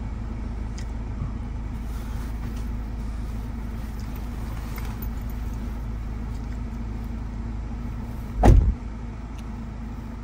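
Steady low hum of a car idling with the occupants inside. About eight and a half seconds in, a rear car door is pulled shut with one heavy thump.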